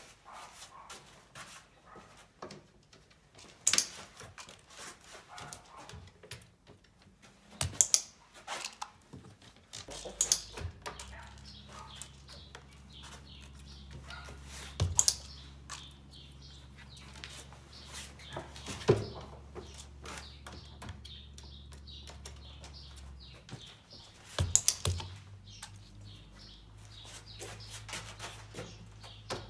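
Scattered sharp taps and knocks of a black Orpington hen's claws and beak on a wooden board ramp and a sheet-covered table. A low steady hum comes in about ten seconds in, drops out briefly, and returns a little higher in pitch.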